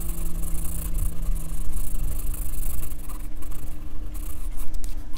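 Graphite pencil scratching across drawing paper in quick, irregular strokes, picked up close, over a steady low hum.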